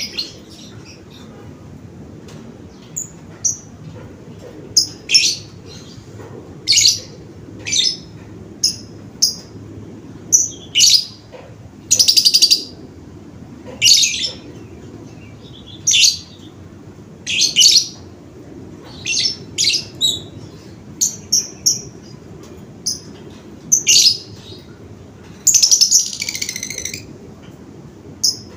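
A bird chirping: short, high calls repeated every second or two, with a longer harsh call near the end.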